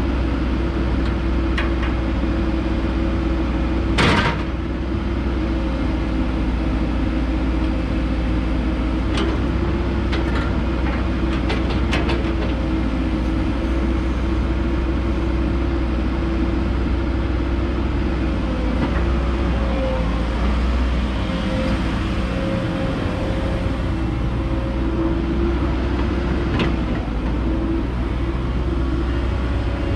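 Cat 313F LGC hydraulic excavator's diesel engine running steadily under load while the boom, bucket and swing are worked, with one sharp metallic clank about four seconds in and a few lighter clicks a little later.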